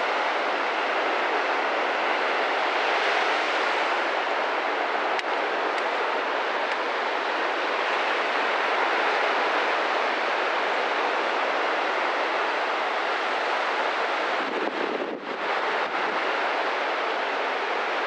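Black Sea surf breaking on a sandy beach: a steady rush of waves, with a brief dip about fifteen seconds in.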